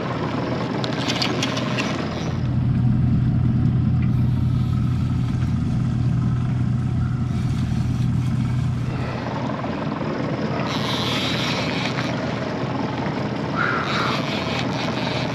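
Twin Yamaha 150 outboard motors running steadily at trolling speed, a low engine drone with wind and water hiss over it. The drone is strongest from about two seconds in until about nine seconds.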